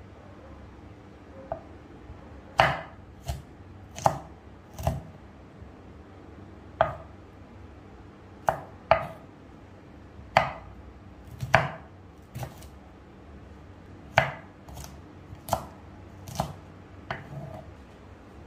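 Kitchen knife cutting broccoli on a wooden cutting board: sharp knocks of the blade striking the board at irregular spacing, roughly one a second, some in quick pairs.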